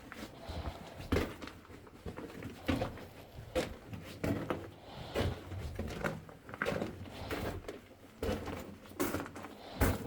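Footsteps crunching on a rocky mine floor, a step a little under every second.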